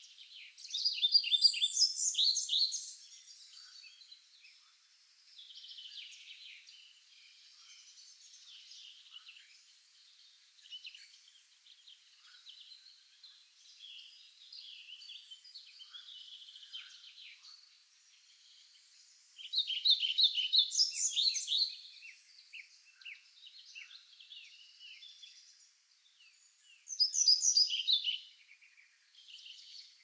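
Songbirds singing: a loud song of rapidly repeated notes, two to three seconds long, comes three times (near the start, about twenty seconds in, and near the end), with quieter chirps and calls from other birds in between.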